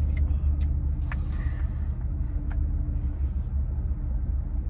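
A steady low rumble throughout, with a few faint clicks and rustles on top.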